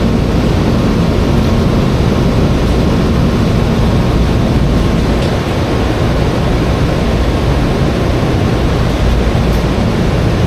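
Steady loud noise: a low hum under an even hiss, unchanging throughout.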